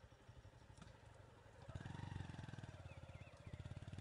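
A motor vehicle's engine running with a fast low pulsing, growing louder about two seconds in.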